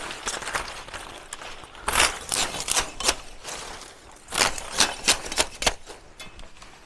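Machete chopping at the stalk of a thorny pokenoboy palm: sharp strikes in two quick flurries, about four blows around two seconds in and five or six more around four and a half to six seconds in.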